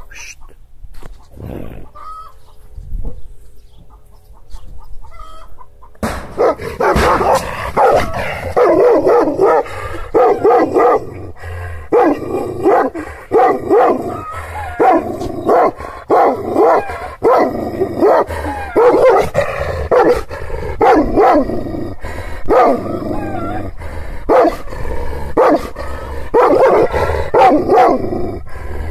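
Kangal shepherd dog barking over and over, starting about six seconds in and keeping on in quick runs, one to two barks a second: a guard dog's warning barks at strangers.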